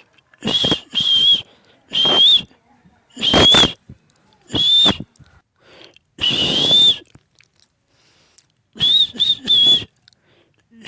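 Pet parrot giving a series of short, high, shrill whistles, about nine in all, each a steady note that flicks upward at the end, with a three-whistle run near the end.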